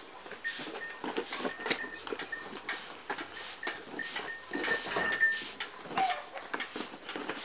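Straw hand broom sweeping a stony dirt yard: brisk scratchy strokes, about two a second.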